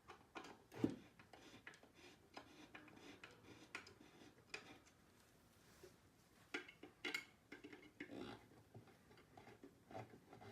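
Faint, scattered clicks and knocks from flat-pack furniture assembly, as the fittings joining engineered-wood panels of a bedside table are worked by hand, with one sharper knock about a second in.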